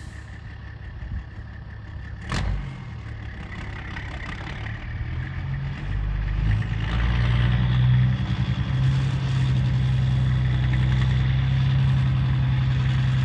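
Semi truck's diesel engine pulling a trailer, growing louder from about six seconds in and then holding a steady low drone. A single sharp knock about two seconds in.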